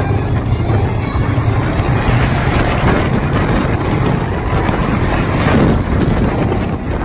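Steel roller coaster train running at speed along its track, heard from the front seat: a steady low rumble of the wheels on the rails mixed with wind buffeting the microphone.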